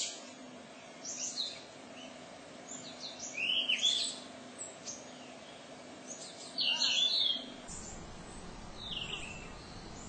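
Yellow-rumped flycatchers chirping: a few short clusters of high, gliding calls a couple of seconds apart over a faint background hiss.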